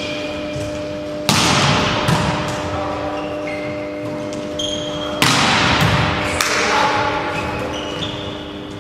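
A volleyball struck hard twice, about four seconds apart, each hit ringing on in the hall's echo, with short high squeaks between the hits.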